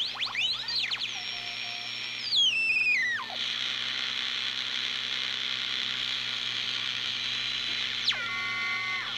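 Heathkit Comanche MR-1 tube receiver being tuned across the 40-meter CW band: steady band hiss with whistling tones that slide down in pitch as the dial passes signals. The loudest is a stepped falling whistle about two to three seconds in, with another falling glide near the end.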